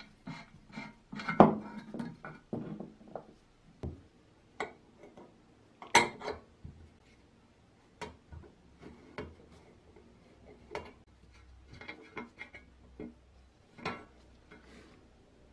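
Scattered metal clinks, taps and knocks as the parts of an old copper hand sprayer are handled and worked with a screwdriver on a wooden bench. Two sharp knocks stand out, about one and a half and six seconds in.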